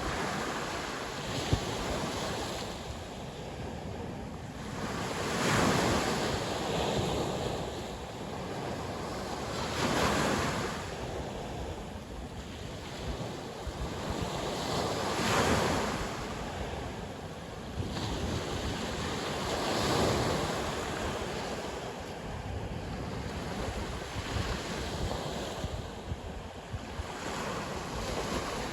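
Sea waves breaking and washing ashore, a louder wave surging in about every four to five seconds over a constant hiss of surf, with wind buffeting the microphone.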